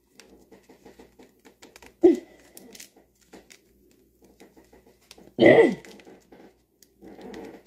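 Light clicking and rustling from small plastic respirator parts being handled, broken twice by a short breathy sound that falls in pitch, a small one about two seconds in and a louder one about five and a half seconds in.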